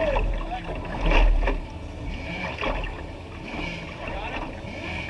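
Wind buffeting the microphone in gusty low rumbles, strongest about a second in, over water slapping against a wooden hydroplane's hull while it sits still with its engine off.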